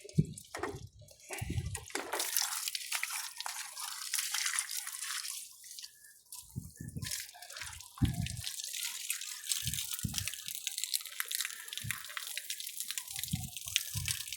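Water pouring and splashing steadily, broken by a few short low thumps; it keeps flowing although the shutoff valve is closed.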